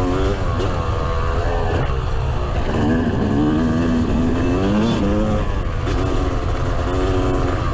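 Yamaha YZ250 two-stroke dirt bike engine running hard on a motocross track, its revs rising and dropping repeatedly, over a heavy low rumble.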